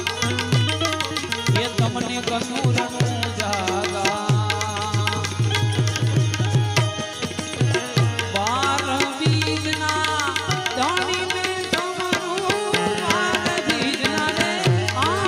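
Bhajan music: tabla playing a steady rhythm, its low bass strokes sliding down in pitch, under a melodic line that wavers up and down.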